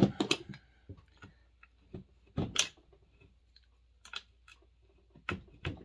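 A hand wrench clicking and knocking against the metal of a Homelite XL Automatic chainsaw as its fasteners are worked loose during teardown. The knocks come irregularly, with small clicks between them, and the loudest clusters come at the start and about two and a half seconds in.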